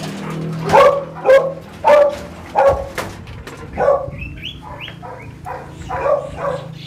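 A dog barking in a series of short barks, about one every half second, with a few higher, gliding whines around the middle.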